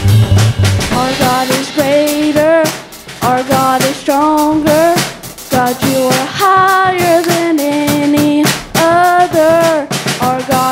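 Live church worship music: a band with drum kit playing a contemporary worship song while a voice sings a slow, held melody line.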